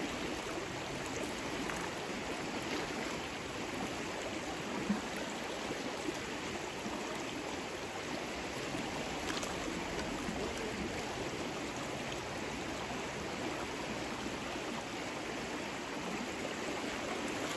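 Shallow, rocky river running steadily over stones, a constant rush of water, with a single brief knock about five seconds in.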